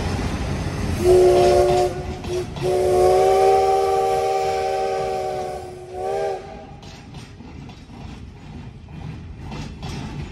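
CT273 steam locomotive's whistle sounding: a short blast, then a long one of about three seconds, then a brief toot, over the rumble of a passing train of freight wagons. After the whistle, the wagons' wheels clicking over the rail joints.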